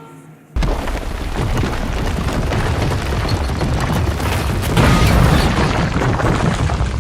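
Explosion sound effect: a loud boom starting suddenly about half a second in, then a long, dense rumble with crackle that goes on without letting up.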